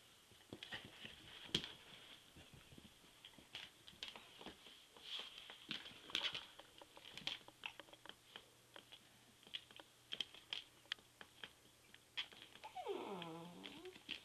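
Two dachshunds play-fighting: light scuffling and scattered clicks of their mouthing and scrambling. Near the end comes a drawn-out whine that falls in pitch.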